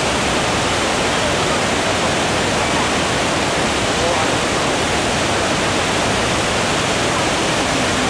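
Waterfall pouring over rocks: a loud, steady rush of water that never lets up, with faint voices of people beneath it.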